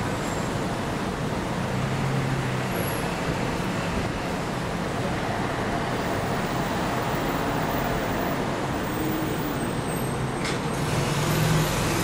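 Steady rumble of road traffic, with a low engine hum coming and going and the noise swelling slightly near the end.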